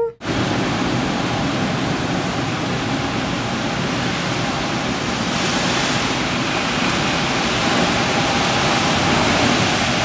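Typhoon rain and wind: a loud, steady rush of downpour and gusting air that starts abruptly.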